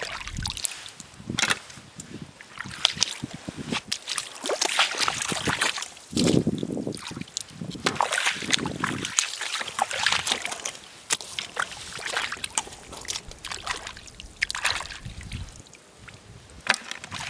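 Wet sloshing and squelching with scattered clicks and rattles, as razor clams are picked up off a wet, weedy tidal flat, and a few low gusts of wind buffeting the microphone about six and eight seconds in.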